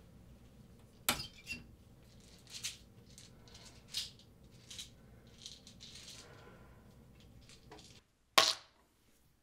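Pills rattling in a plastic prescription bottle as it is taken from a medicine cabinet and handled, in short scattered shakes and clicks. Near the end comes one sharp knock, louder than the rest, as the bottle is set down on a granite countertop.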